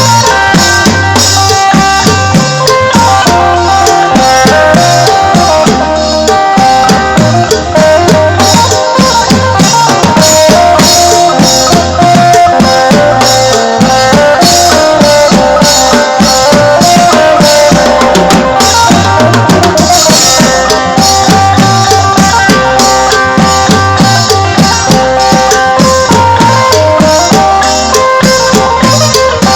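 Live Isan folk music from a phin prayuk (applied electric phin) band: a sustained melody over a steady drum-kit beat with percussion.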